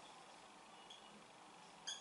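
Marker pen squeaking faintly on a whiteboard while writing, a few short high squeaks with the loudest near the end.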